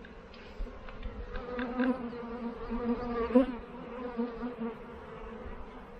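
Honey bees buzzing close by at an opened hive: a steady hum that rises and falls in loudness as bees fly near.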